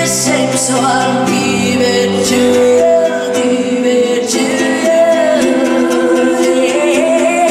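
Live pop-rock band music with a sung vocal, its notes held long over steady accompaniment.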